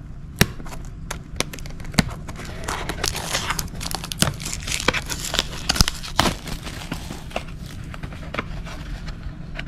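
Packaging being handled and opened by hand: crinkling and rustling with many scattered light clicks and knocks.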